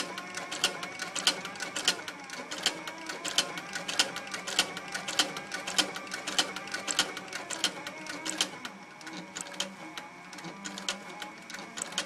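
Cowboy CB3200 heavy-duty industrial sewing machine stitching, a sharp clack with each stitch about three times a second over a steady motor hum. After about eight seconds the stitching slows and the clacks grow softer and sparser.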